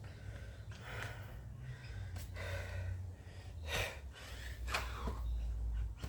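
A person breathing hard and audibly between exercise reps, with loud breaths about every second or so.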